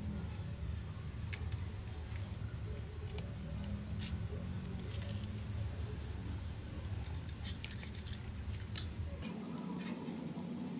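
Scattered light clicks and snips of hand tools and small wiring parts being handled, over a steady low hum.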